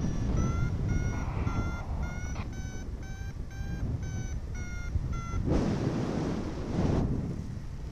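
Paragliding variometer beeping about twice a second, its pitch stepping up and then back down: the climb tone that signals the glider is in rising air. Wind rushes on the microphone throughout; the beeping stops about five and a half seconds in as a louder gust of wind noise takes over.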